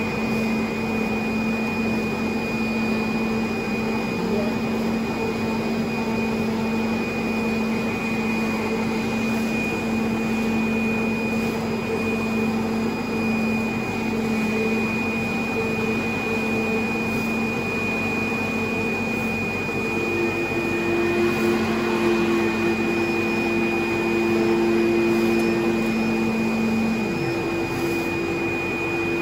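STYLECNC flatbed CNC knife cutting machine running steadily as it cuts and creases corrugated cardboard: a continuous whir of its vacuum hold-down blower with a steady high whine. A higher hum joins about two-thirds of the way through, and a low hum cuts off near the end.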